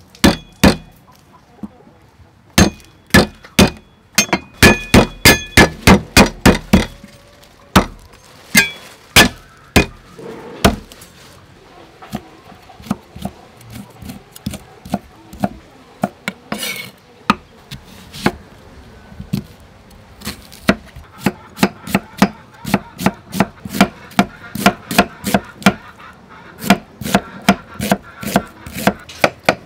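Cleaver chopping vegetables on a thick round wooden chopping block: sharp knocks of the blade on the wood in quick runs of about three to four strokes a second, broken by short pauses, steadier and continuous over the last third.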